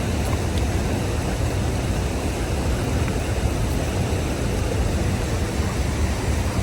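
Steady roar of rushing river water and waterfall, even and unbroken.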